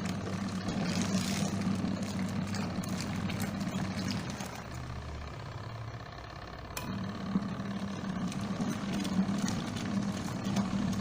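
Mito WM1 mini washing machine's wash motor running with a steady hum, stopping about four seconds in and starting again a couple of seconds later, the run-and-pause of its wash cycle.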